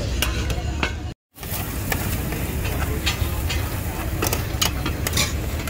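Metal spatula scraping and clinking against an iron kadai of simmering pasta sauce, in short strikes over a steady low rumble of street noise. The sound cuts out briefly about a second in.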